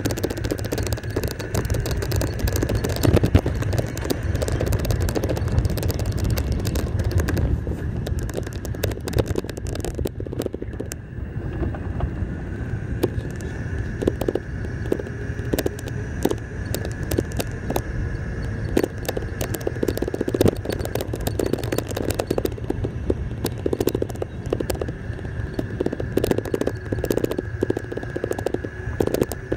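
Golf cart driving along a paved path: a steady whine over a low running rumble, with the body and loose dashboard items rattling and clicking throughout.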